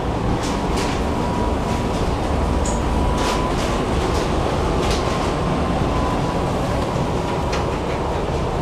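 Tram running along the track, heard on board: a steady rumble of wheels and motors with a thin, steady whine, and a few scattered clicks as the wheels cross rail joints.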